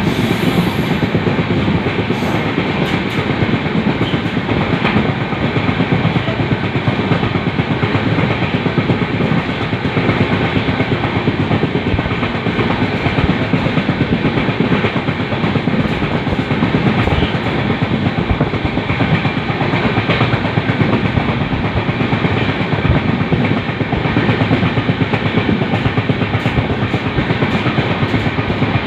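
Steady running noise of a train of LHB coaches at speed: wheels rolling on the rails, a continuous rumble.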